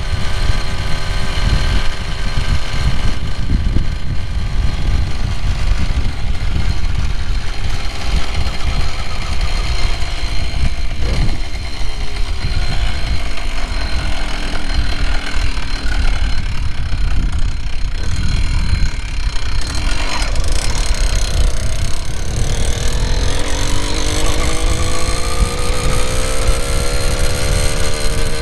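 Two-stroke motorized-bicycle engine, freshly broken in and running on 40:1 gas-oil mix, running under way. Its note drops a little before halfway and stays low, then climbs steadily as it speeds up over the last several seconds, over a constant low rush of wind on the microphone.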